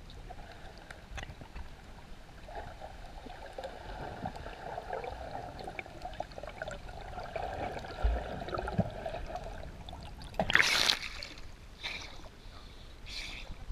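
Water heard from underwater: muffled bubbling and gurgling as a snorkeler breathes out through his snorkel. About ten seconds in comes a loud rush of water as the camera breaks the surface, followed by short splashes and sloshing at the surface.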